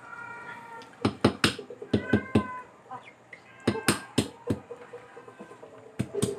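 A domestic cat meowing, one call at the start and another about two seconds in, over clusters of sharp clicks and taps that are louder than the meows.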